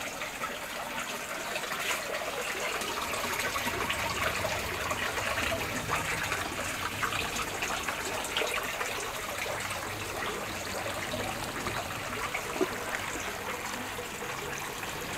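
Water running steadily through an aquaponic system, trickling and splashing as it pours from the grow-bed drain pipes into the fish tank and from the inlet valves onto the clay pebbles.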